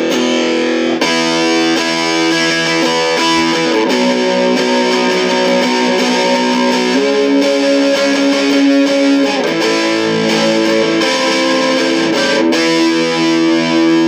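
Electric guitar played through a Vox Satchurator distortion pedal: heavily distorted chords, each held a second or more before changing to the next.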